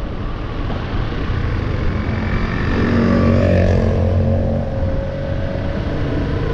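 Motorcycle engine running with wind rumble while riding along a road, the engine note swelling a couple of seconds in and easing off again.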